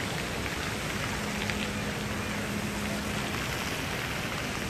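Fountain jets spraying into a lake, a steady rain-like hiss of water falling back onto the surface.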